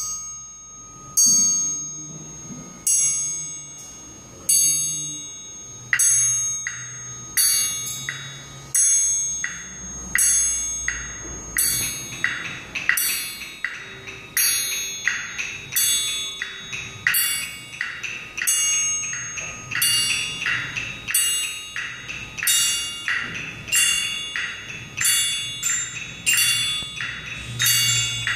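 School hand-percussion ensemble playing a ticking, clock-like piece: a metal triangle struck on a steady beat, ringing between strokes, with dry wooden knocks from a wood block and sticks. The strokes come about every second and a half at first, twice as often from about six seconds in, and another ringing part joins about twelve seconds in.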